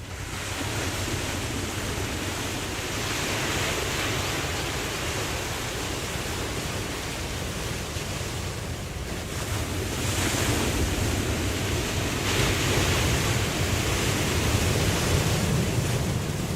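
Ocean waves washing in as a steady hiss that swells three times, over a constant low rumble.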